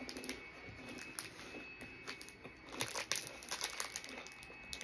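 A snack wrapper crinkling and crackling in the hands as it is unwrapped, in irregular bursts that are loudest about three seconds in.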